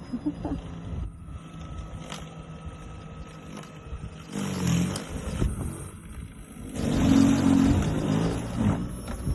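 MasterCraft 2x20V brushless cordless snow blower running with a steady electric motor hum. It gets much louder and harsher twice, briefly about four seconds in and again for about two seconds near the end.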